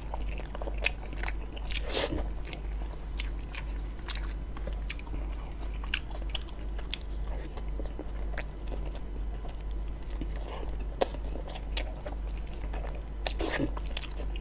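Close-miked chewing of a mouthful of chicken roti john, a soft bun with chicken filling: irregular wet mouth clicks and smacks, with a steady low hum underneath.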